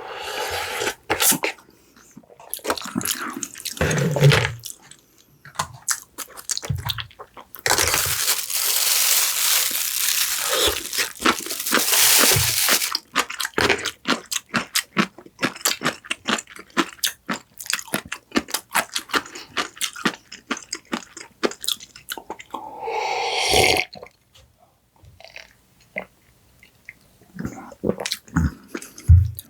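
A person eating: crunching and chewing crisp fried food in many quick crackles. A longer stretch of dense crunching noise comes about a quarter of the way in, and a short burst near three-quarters.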